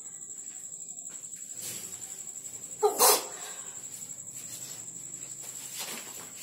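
Crickets chirping in a steady high trill, with a dog barking once, in two quick parts, about three seconds in.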